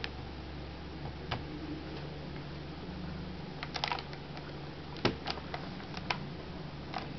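Keys pressed on a NorhTec Gecko Edubook netbook keyboard: scattered single clicks with a short quick run of presses about four seconds in, over a steady low hum.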